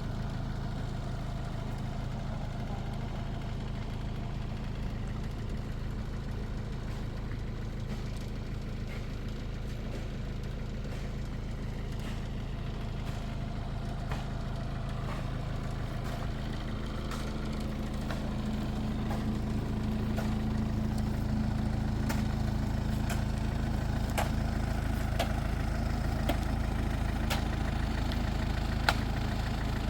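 An engine running steadily at a low, even pitch. It gets a little louder about two-thirds of the way through, and a few light clicks come near the end.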